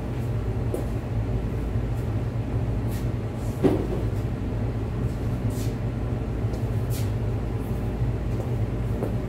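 Steady low machine hum in a garage workshop, with a few faint clicks and one sharper knock about three and a half seconds in.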